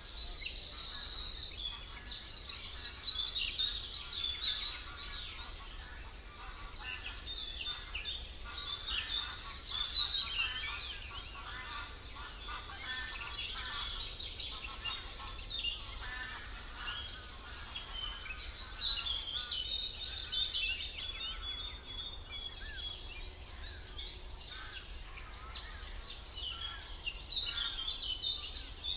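Several songbirds singing over one another in a dense chorus of warbles and trills, loudest in the first couple of seconds.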